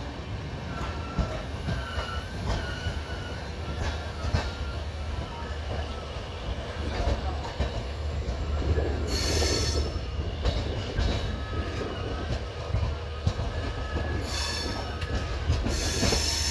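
Indian Railways passenger train running along the track, heard from aboard: a steady low rumble with wheels squealing in thin wavering tones and a few clanks over rail joints and points. Louder high squeals come about nine seconds in and twice near the end.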